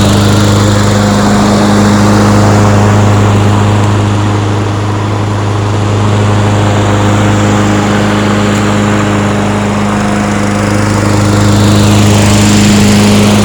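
Murray 22-inch self-propelled lawn mower's small petrol engine running steadily under load while cutting grass. Right at the end it is shut off and starts to wind down, its pitch falling.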